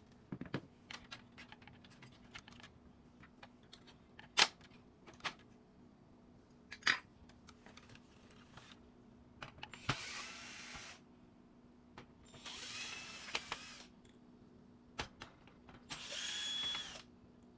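Electric screwdriver running in three short bursts of about a second each, in among sharp clicks and knocks of screws and plastic printer parts being handled.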